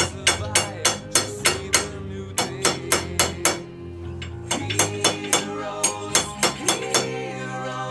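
Background music with a fast, steady percussive beat of about four strikes a second, which pauses briefly about halfway through.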